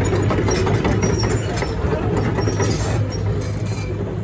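Liebherr R924 Compact hydraulic excavator running, its diesel engine giving a steady low hum, with frequent short metallic clicks and clanks over it.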